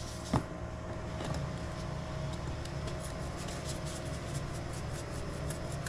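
Salt being shaken into a plastic bowl of flour: soft scattered ticks over a steady low hum, with one louder click just after the start.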